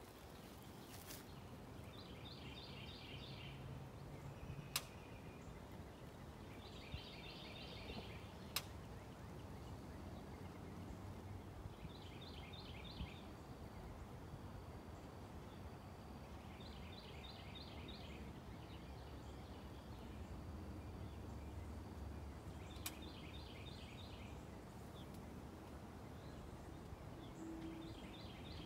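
A songbird repeating a short, fast trilled phrase every four to five seconds over a steady rush of wind, with three sharp taps.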